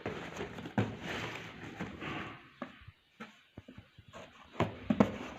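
Handling noises from packaging: rustling with a few sharp knocks, as a boxed set of dessert bowls is brought out and turned over.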